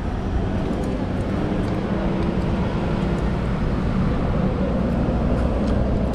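Street traffic: a steady low rumble of motor vehicles running on the road, with a faint engine hum.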